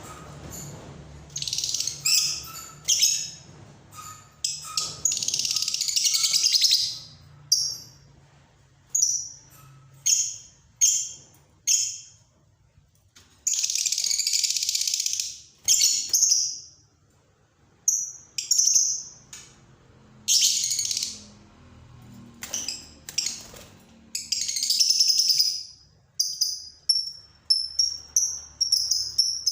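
A contest songbird singing: several long phrases of rapid high notes lasting a few seconds each, mixed with short chirps and brief pauses.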